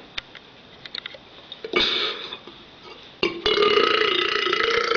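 A man belching: a short burp about two seconds in, then a long, loud belch held at a steady pitch from about three and a half seconds in.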